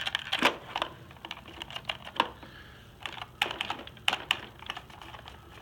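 Irregular clicks and taps of hard plastic as a Robosapien V2 toy robot's hands and arms are handled and moved, coming in uneven clusters.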